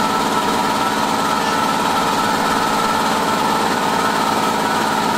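Starkwerk SW 455/10 twin-cylinder air compressor running steadily under load, pumping up its tank after the repair and refit of its check valve.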